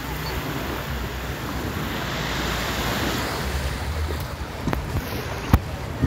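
Small waves breaking and washing up a sandy shore, the wash swelling about two seconds in, with wind rumbling on the microphone. Two sharp knocks come near the end.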